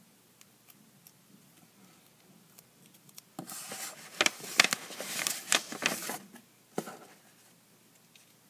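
Close rustling and crinkling with many sharp clicks for about three seconds, then one last click: a hand and sleeve reaching right past the microphone to pick craft items off the table.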